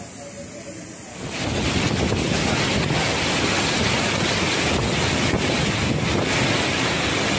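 Typhoon wind blowing hard and buffeting the microphone, cutting in loudly about a second in with irregular gusts. Before that, the quieter rush of a flooded river.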